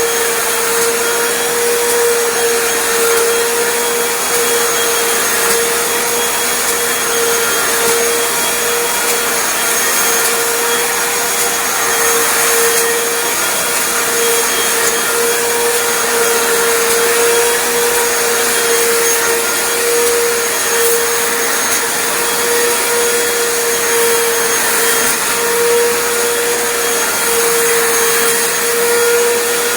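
Hoover Floormate FH40150 hard floor cleaner running: a steady motor whine over an even rushing hiss that does not change.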